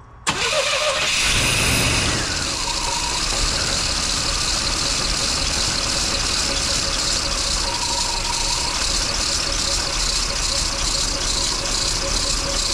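1989 GMC Sierra pickup's engine starting abruptly just after the beginning, running a little higher for about the first two seconds, then settling into a steady idle. This is its first start on freshly changed oil.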